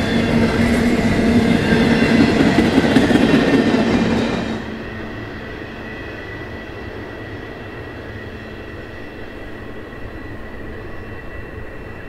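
Intermodal freight train cars rolling past, steel wheels running on the rails with a steady high wheel squeal. About four and a half seconds in the sound drops suddenly to a quieter, duller rolling sound as the last car moves away into a curve, the squeal still going.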